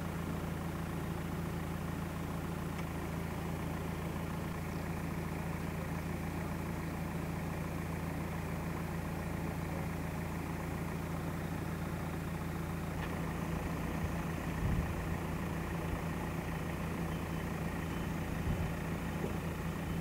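An engine running steadily with a low, even hum, with a couple of faint knocks in the last few seconds.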